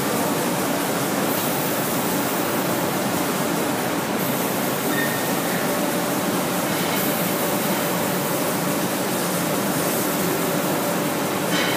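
Giardina GS25 automatic spray machine running in reciprocating mode, its spray guns giving a steady spraying hiss over the machine's running noise. A higher layer of the hiss drops out briefly every few seconds.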